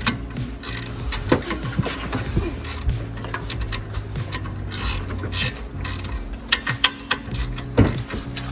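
Hand ratchet wrench clicking in irregular runs as the caliper bracket bolts on a Jeep Liberty's front hub are run in, with metal knocks of the socket and tools.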